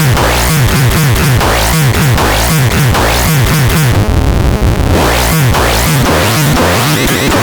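Loud, harsh electronic music: distorted synthesizer noise over a fast pulse of bass hits that each slide down in pitch, about three a second. About four seconds in, the bass drops out for roughly a second, leaving a buzzing texture, then the pulse returns.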